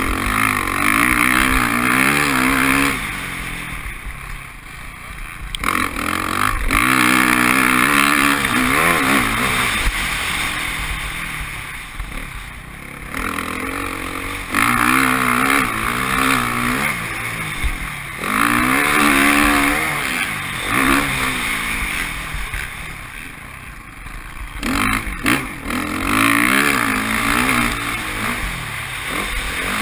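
Motocross bike's engine, heard from the bike itself, revving hard and easing off over and over, its pitch climbing and dropping with each burst of throttle through the track's turns and straights.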